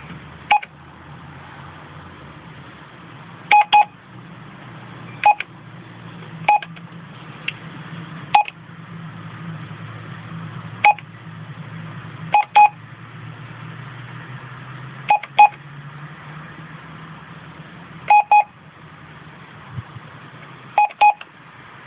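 Keypad beeps from a MYPOL onboard computer as its keys are pressed: about a dozen short electronic pips at irregular intervals, several in quick pairs, over a low steady hum.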